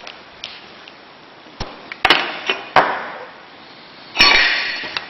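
Metal shower door handles knocking and clanking together as they are handled and set down: a few sharp metallic knocks with a short ring, the loudest clank about four seconds in.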